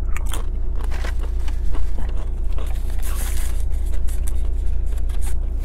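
Close-up eating and handling sounds: chewing with irregular small clicks, and the crinkling rustle of a burrito's aluminium foil wrapper about three seconds in. A steady low hum runs underneath.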